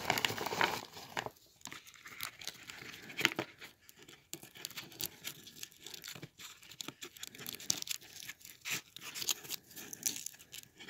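Thin foil candy wrapper crinkling and tearing in irregular short crackles as a foil-wrapped chocolate Kiss is unwrapped by hand.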